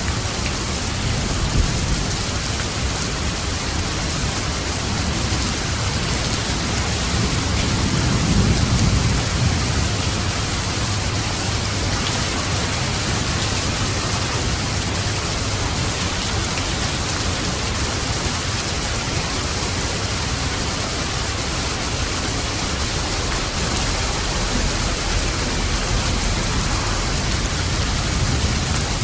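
Steady, dense rainfall with no breaks. A low rumble of thunder swells briefly about eight seconds in.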